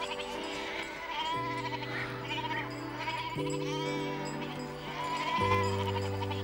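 Soft background music with held chords, the bass note changing about every two seconds, and goats bleating in short wavering calls over it.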